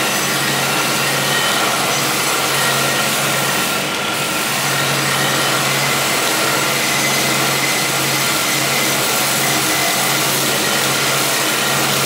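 Homemade belt sander driven by a sewing-machine motor, running steadily with a steel knife blade held against the abrasive belt: a steady motor whine under a harsh grinding hiss, easing slightly for a moment about four seconds in.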